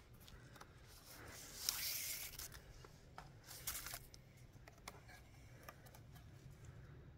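Cord being pulled and wrapped around wooden poles for a lashing. There is a rasping swish about a second and a half in, then a few light clicks and scrapes.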